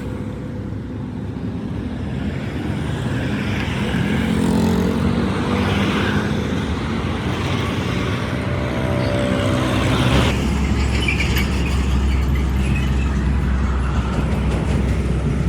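Motor vehicle engines running with road traffic noise; a heavier, low engine rumble sets in about two-thirds of the way through.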